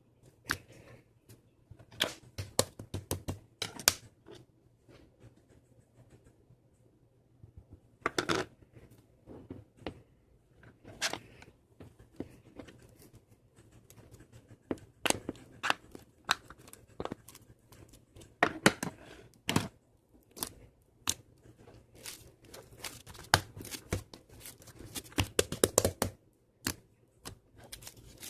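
Close-up handling noise: irregular clicks and crackles at uneven spacing, with a few louder clusters.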